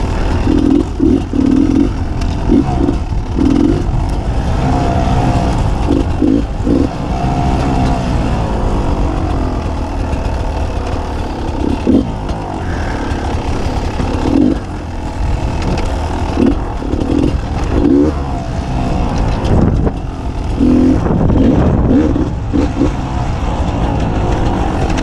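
Beta 300 RR two-stroke enduro motorcycle being ridden on a dirt trail, the engine rising and falling with repeated short bursts of throttle.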